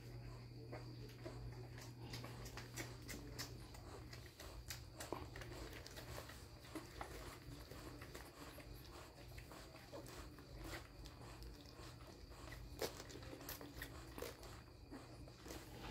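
Faint, irregular clicking of 8-day-old puppies suckling at their mother, over a steady low hum.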